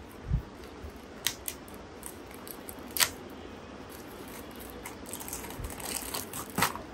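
Clear plastic packaging and a card header being handled and torn off a plastic toy motorbike: a few sharp clicks and snaps, then denser crinkling and rustling of the cellophane bag near the end.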